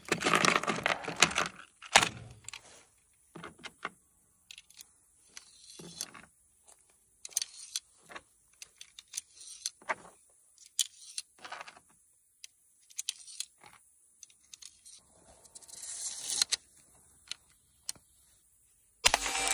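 Clicks, clinks and rustling of .22 LR cartridges being handled from their box and loaded into the brass magazine tube of a Henry Golden Boy lever-action rifle, with a sudden louder sound near the end.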